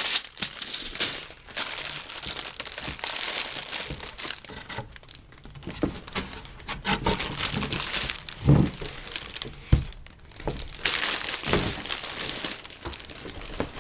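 Plastic bags of Lego pieces crinkling and rustling as they are pulled out of the box and piled up, with a few dull thumps about midway.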